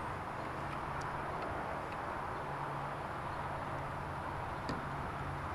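Steady outdoor background noise with a low hum underneath and a few faint ticks.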